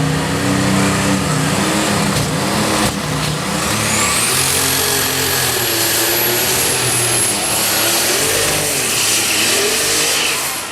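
Pulling tractor's engine running hard under load in a tractor pull. A high whistle rises about four seconds in and holds for several seconds.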